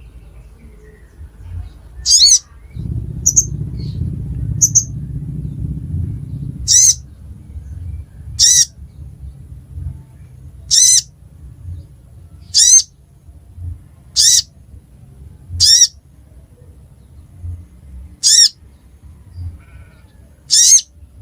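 Sogon (sogok ontong) bird calling: short, loud, high-pitched calls repeated about every two seconds, each sweeping sharply downward, with two shorter high chirps between them. A low rumble runs underneath for a few seconds near the start.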